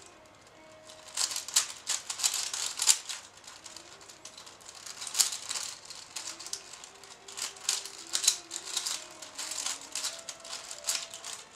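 5x5 puzzle cube being turned fast in the hands, its plastic layers clicking and clacking in quick irregular bursts during a timed solve.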